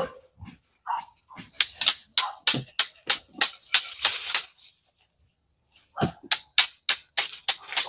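Hammer striking a steel chisel driven into a termite-infested tree trunk, chipping the bark open: a run of sharp taps about three a second, a pause of about a second and a half, then a faster run of taps.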